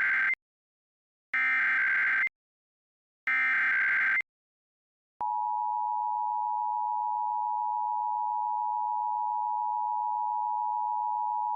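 Emergency Alert System SAME header: the end of one burst of warbling digital data tones and two more bursts, each about a second long with a second between them, marking the start of an alert. About five seconds in, the steady two-tone EAS attention signal starts and holds.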